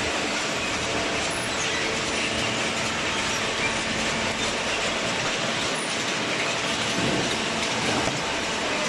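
Steady machinery noise, an even din at a constant level with a faint hum.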